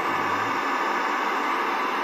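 Steady static hiss from a JVC 21-inch CRT television's speaker, tuned to a channel with no signal.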